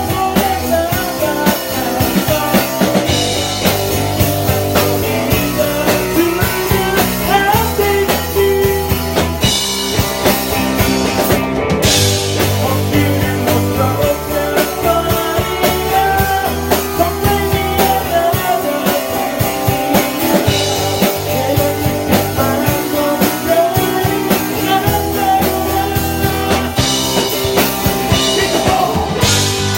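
A rock band playing: electric bass stepping through notes under a drum kit, with guitar and a melodic lead line on top and cymbal crashes every few seconds.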